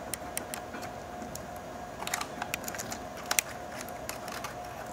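Fingers handling a ribbon cable and small plastic and metal parts inside an open laptop: scattered light clicks and rustles, with a sharper pair of clicks about three seconds in. A faint steady hum runs underneath.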